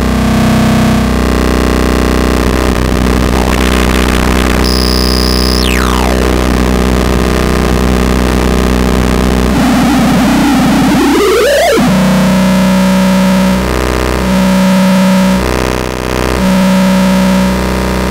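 Synthesizer signal run through the PLXNA2, a handmade 6CB6 vacuum-tube pentode distortion processor, giving a loud, noisy, distorted drone. Partway through, a high tone falls in a long downward sweep; later a tone sweeps upward. After that the sound turns into a low tone pulsing on and off about every two seconds.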